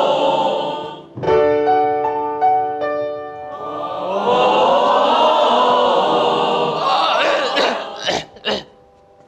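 Group of voices singing in chorus with piano accompaniment. About a second in there is a short passage of held piano chords, then the singing resumes and breaks off near the end.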